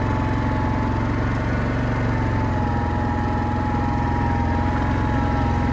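Yamaha Grizzly 700 ATV's single-cylinder four-stroke engine running steadily at low speed while the quad rolls slowly along, heard close up from the handlebars. A thin, steady whine sits above the engine note.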